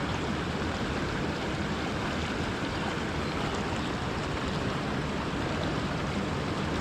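Steady rush of river water flowing over small cascades.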